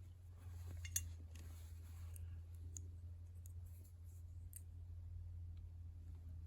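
Pliers snipping through pick wire: one sharp click about a second in, followed by a few faint ticks, over a steady low hum.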